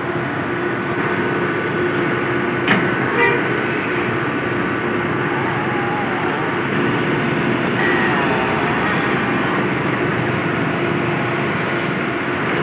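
Heavy demolition machine's engine running steadily, with two sharp knocks about three seconds in.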